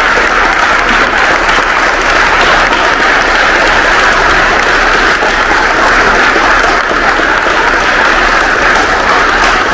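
Audience applauding, a roomful of people clapping steadily and loudly.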